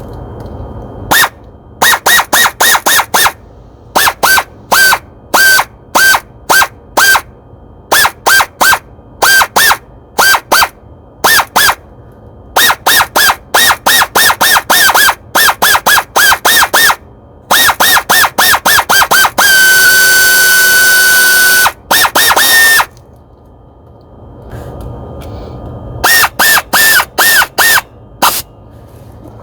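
Pneumatic air ratchet running a spark plug into the cylinder head, its trigger blipped in quick clusters of short bursts, each a high whine that rises as it spins up. About two-thirds through it runs without stopping for about three seconds at a steady whine, then it returns to short blips near the end.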